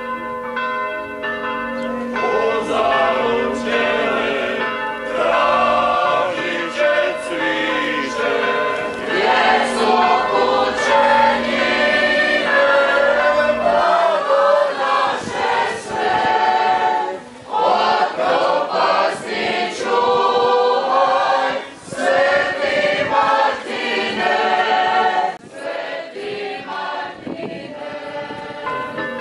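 Choir singing, with church bells ringing behind it.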